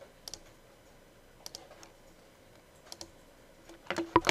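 Computer mouse and keyboard clicks: a few scattered clicks, some in quick pairs about a second apart, then a louder cluster of clicks near the end.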